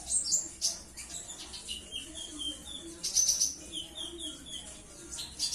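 Purple-throated sunbird (konin, Leptocoma sperata) singing: quick high chips and trills, with two runs of about four short repeated notes.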